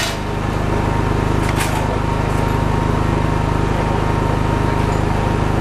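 Steady low mechanical hum, with a sharp click at the start and another about a second and a half in.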